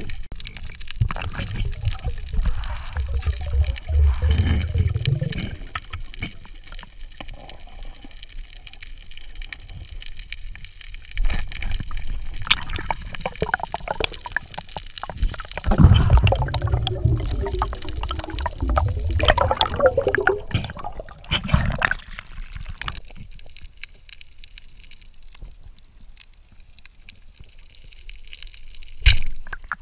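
Underwater camera audio: water gurgling and sloshing with uneven low rumbles of movement, loudest around 4 s and 16 s in, quieter after about 23 s, with a sharp click near the end.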